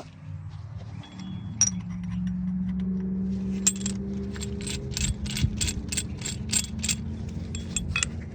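Caliper compression tool being turned to push a brake caliper piston back: a run of about a dozen even ratcheting clicks, about three a second, over a steady low hum.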